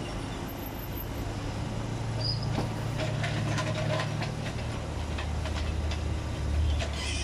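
Mini excavator's engine running steadily, its hum dropping to a lower pitch about five seconds in as the boom works. Scattered knocks and scrapes come in the middle.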